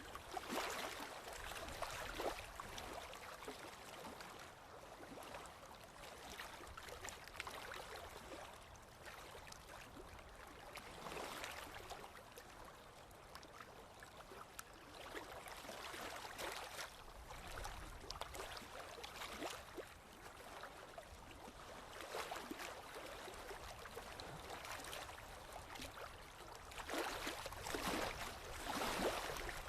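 Forest river flowing over rocks, a babbling, gurgling rush that swells and eases every few seconds, louder near the end.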